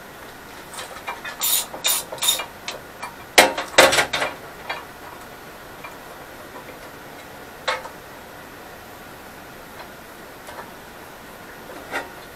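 Scattered metallic clinks and knocks of a hand tool and hardware against a cast-iron lathe bed, with the loudest cluster of knocks about three and a half seconds in and a lone click near the middle.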